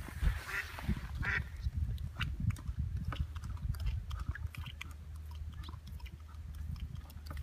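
Evinrude outboard motor idling just after a cold start, an irregular low chugging with scattered ticks.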